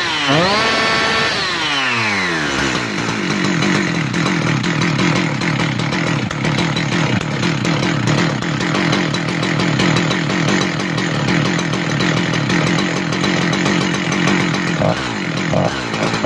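Husqvarna 372XP two-stroke chainsaw engine running: it revs up and falls back to a steady idle about two seconds in, then is revved again near the end. The carburettor is being re-tuned with a screwdriver after a new fuel-pump diaphragm and throttle spring were fitted.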